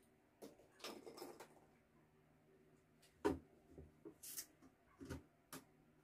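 Scattered light knocks and clicks, the loudest a little past halfway, with a brief scraping hiss just after it, as the front panel of an opened Bosch amplifier is handled and pulled away from its chassis.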